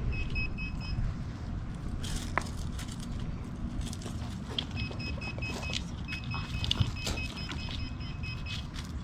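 Handheld metal detector beeping rapidly at one high pitch, about six or seven beeps a second, in a short run at the start and again in longer runs from about halfway through: a buried metal target being pinpointed. Short clicks and a low rumble of wind on the microphone lie underneath.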